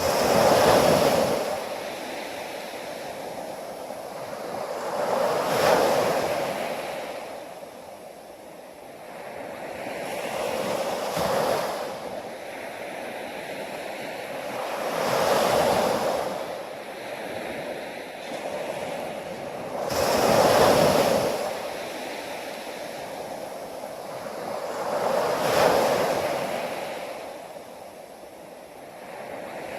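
Ocean waves washing in, swelling and fading about every five seconds, six surges in all.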